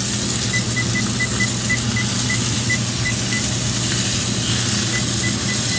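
Electronic oven control panel beeping with each button press: about fourteen short high beeps, a quick run in the first half and a few more near the end, as the set temperature is raised from 350 to 425 °F. Under them, a steady hiss and hum.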